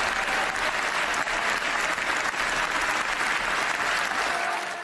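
Sustained applause from a large crowd of MPs, dense hand-clapping with faint voices mixed in. It fades out at the very end.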